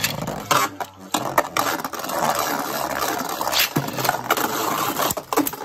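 Two Hasbro Beyblade Burst tops, Surge Sphinx and Eclipse Devolos, spinning in a plastic stadium: a continuous whirring scrape of their tips on the plastic floor, broken several times by sharp clacks as they collide.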